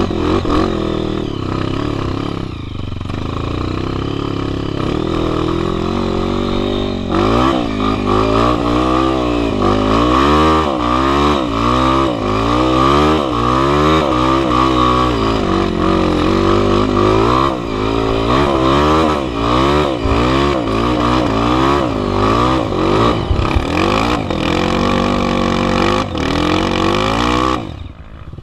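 Honda CRF 240 trail bike's single-cylinder four-stroke engine under load, heard close from the rider's seat. It pulls fairly steadily at first, then the revs rise and fall about once a second as the throttle is worked, before dropping away sharply near the end.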